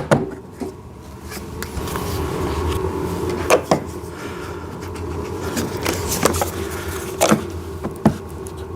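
Plastic side mirrors of a ride-on toy car being pushed into their mounting holes: a handful of sharp clicks and knocks spread over several seconds, over a steady low background hum.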